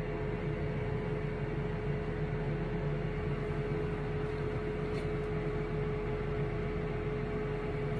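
Steady hum of a running appliance, a constant mid-pitched tone over even noise, unchanging throughout.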